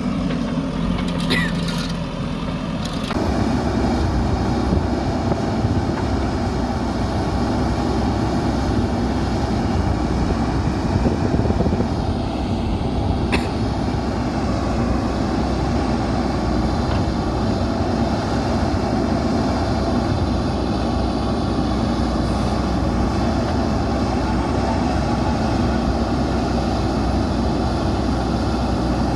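JCB 3DX backhoe loader's diesel engine running steadily, picking up to a louder, heavier run about three seconds in.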